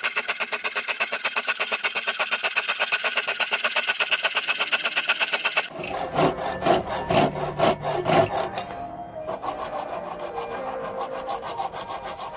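Homemade wire saw, a twisted-wire blade in a bent metal frame, cutting a curve into a square bar with quick, even back-and-forth strokes, several a second. About six seconds in, the strokes turn slower, heavier and uneven. After a short lull, a steadier rubbing follows near the end.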